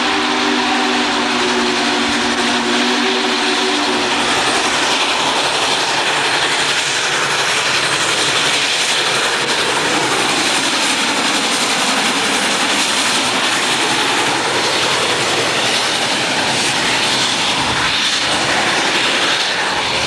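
Norfolk and Western Class J steam locomotive #611 sounding its chime whistle, a steady chord that cuts off about four seconds in. After that comes a steady, loud rushing noise as the locomotive and its train run past close by.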